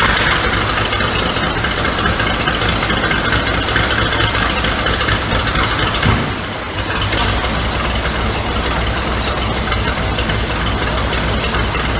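The 1923 American LaFrance fire truck's big T-head engine of almost 900 cubic inches is running loudly just after being started on its push-button starter. About six seconds in, the sound shifts lower and deeper as the engine settles.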